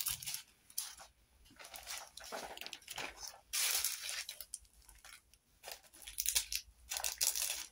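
Small plastic bags of diamond-painting drills rustling and crinkling as they are handled and put away, in irregular bursts.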